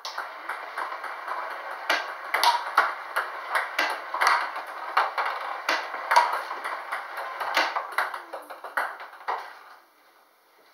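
Table tennis balls clicking rapidly off a paddle and the table, fed by a ball-throwing robot, over a steady rushing noise. The clicking stops about nine and a half seconds in.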